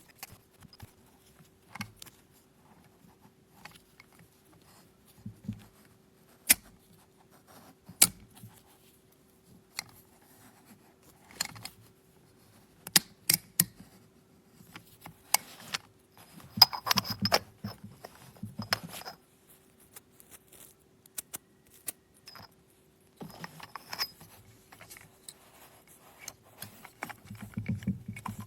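Scattered sharp clicks, taps and brief clatters of a stainless-steel manual coffee grinder being handled, metal parts knocking together. A faint steady hum lies underneath.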